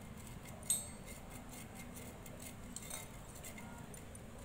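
Small metal hand grater being rubbed with a piece of food over a steel bowl: a run of light, quick rasping scrapes, with one sharper tick against the metal about a second in.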